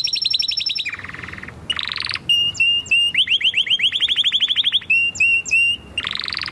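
Canary singing a loud, high song that changes from phrase to phrase: fast trills, buzzing rolls and runs of short repeated whistles. It breaks off near the end.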